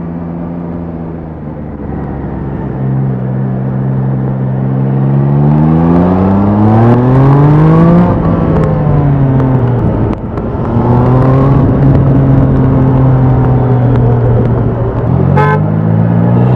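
Triumph Trident 660's inline three-cylinder engine through its stock exhaust under riding load. The revs hold steady, then rise and drop at a gear change about eight seconds in. They settle to a steady cruise and rise again near the end. A short horn beep sounds near the end.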